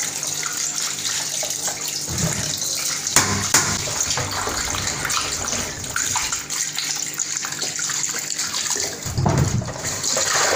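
Kitchen tap running into a plastic bowl in a stainless steel sink while a plastic grater and then peeled water yam pieces are rinsed by hand under the stream, with splashing and a few knocks of plastic being handled.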